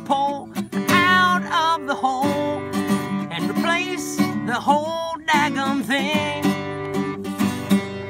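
A man singing a comic song while strumming a Takamine acoustic guitar.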